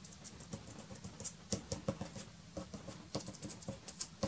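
Soft pastel stick dabbing and scratching on black pastel paper in quick, irregular little taps, with one sharper tap near the end.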